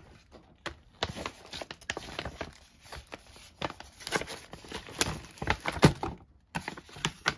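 Paper gift wrapping rustling and crinkling as a package is handled and opened, with irregular knocks and clicks as a heavy plastic-wrapped sticker album is pulled out against a cardboard box.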